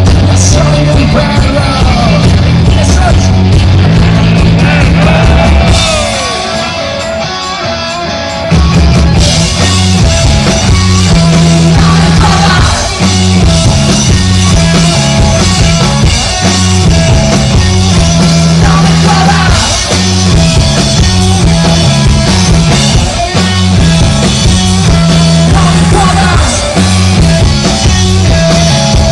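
Loud rock music with drum kit, bass and singing; the band thins out for a couple of seconds about six seconds in, then comes back in full.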